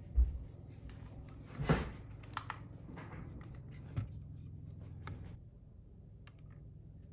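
Handling noise as a small kitchen scale is set down and a metal fidget spinner is placed on it. There is a dull low thump right at the start, a louder knock with a brief rustle a little under two seconds in, then a few light clicks and taps.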